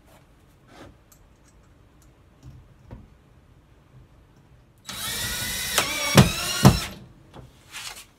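Cordless drill running for about two seconds, driving into a half-inch MDF nailer strip on the wall; its pitch drops as it loads up, with two heavy thuds as it finishes. A short, fainter noise near the end.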